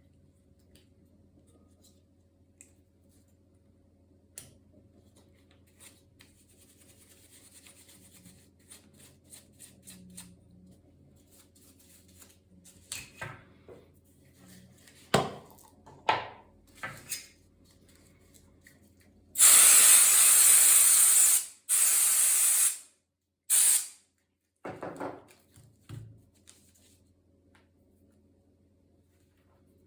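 Compressed air blowing in three loud hissing bursts, the first about two seconds long, with quieter short puffs after them; small clicks and knocks of handling the laptop come before them.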